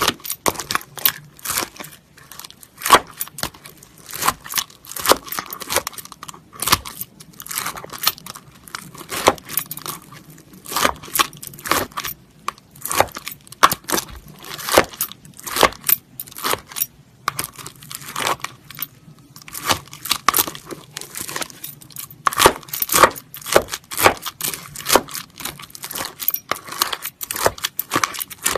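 Metal spoon scooping and pressing through clear slime packed with beads, giving dense, irregular crunchy clicks and crackles, with a few short pauses.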